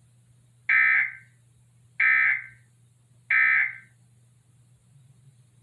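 Emergency Alert System end-of-message signal: three short electronic data bursts about a second apart, the SAME digital code that closes an EAS test.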